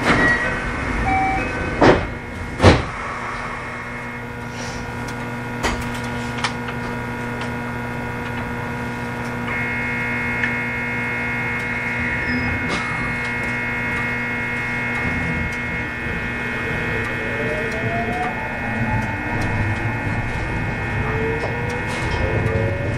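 JR West 521 series electric train with a Toshiba IGBT inverter, heard from inside the car. Steady electrical tones carry on under a low rumble, with two loud knocks a couple of seconds in. About three-quarters of the way through, the traction motors start a whine of several pitches rising together as the train accelerates.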